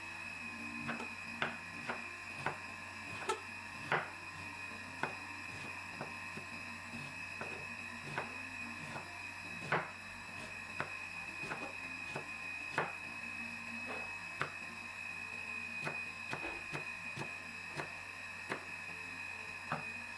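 Irregular light knocks and clicks of kitchen work, about one a second, over a steady high-pitched hum.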